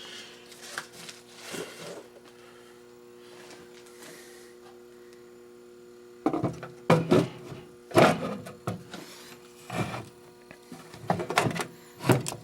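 Several sharp knocks and rattles of parts and wiring being handled and moved inside a metal fire alarm control panel, starting about six seconds in, over a steady electrical hum.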